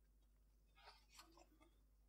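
Near silence: room tone, with a few very faint ticks about a second in.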